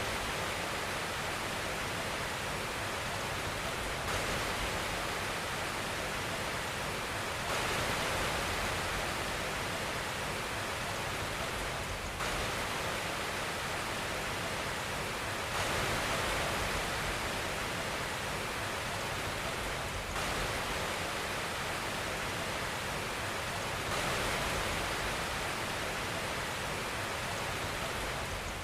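Steady white noise for lulling a baby to sleep: an even, unbroken hiss across all pitches. Its loudness and tone shift slightly every four seconds or so.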